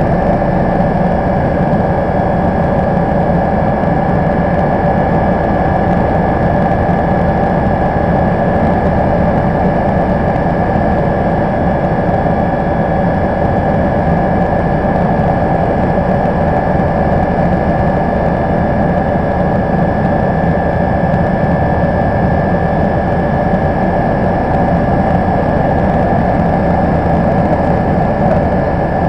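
Cabin noise of a Bo 105 helicopter in cruise flight: its twin turboshaft engines and rotor running steadily, a constant high whine over a deep drone and rushing air.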